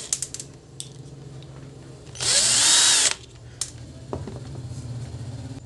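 Cordless drill-driver spinning in one short burst of about a second, about two seconds in, undoing a screw on a soldering iron's barrel, its pitch rising and falling as the motor speeds up and slows. Light metallic clicks and taps of the screw and small parts before and after the burst.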